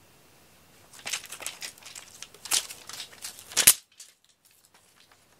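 Crinkly scratching and rustling scuffles from a cat teaser toy on a string being yanked about in play. There are several sharp scratchy bursts, the loudest near the middle, and they stop suddenly.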